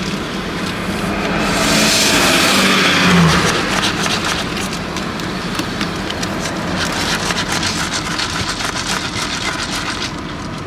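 Ice rattling in a plastic cup as a straw is stirred through an iced drink, a quick run of clinking clicks through the second half. A louder rushing noise with a low hum comes about two seconds in, over a steady car-interior background.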